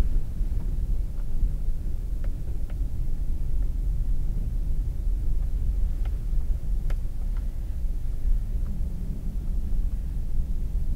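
Low, steady rumble of a car driving slowly over a snow-packed parking lot, heard inside the cabin, with a few faint clicks.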